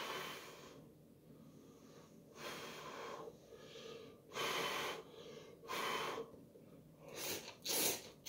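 A man slurping instant ramen noodles in a series of short, noisy slurps.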